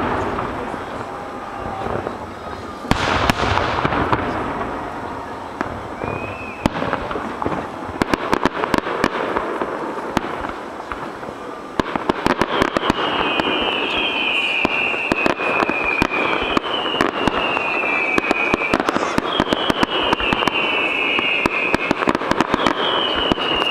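Fireworks display: two booms with long echoing tails in the first few seconds, then dense crackling. From about halfway, a run of high whistles, each falling in pitch over a second or more, repeats about every two seconds over the crackle.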